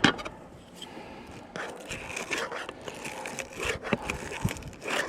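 Dry straw rustling and crackling in hands as it is laid and pressed down, with a single knock at the very start.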